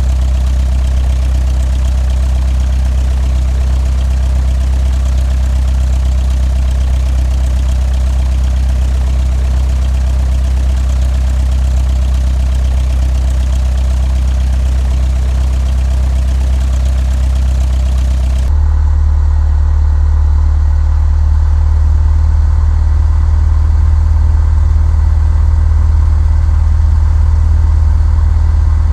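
Single-engine Cessna 172's piston engine and propeller running steadily, heard from the cabin as a loud low drone. About two-thirds of the way through, the sound changes suddenly: a little louder and slightly higher in pitch, with less hiss on top.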